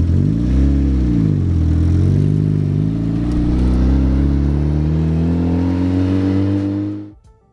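Turbocharged NA Mazda Miata's four-cylinder engine revving up and back down once, then pulling away with its pitch climbing steadily as the car accelerates. The sound cuts off suddenly near the end.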